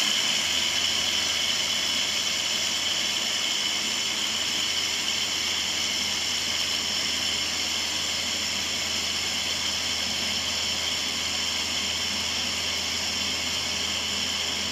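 Countertop blender with a glass jar running steadily, whipping eggs and sugar into a frothy cake batter.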